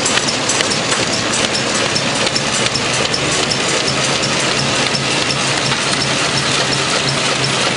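Industrial paper-processing machine running: a dense, steady mechanical clatter with small ticks over a low hum, which grows stronger about halfway through.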